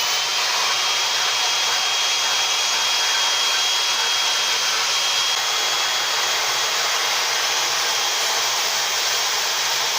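Carving chainsaw running steadily at full throttle, a high whine over the cutting noise, as the tip of the bar cuts fur texture into wood.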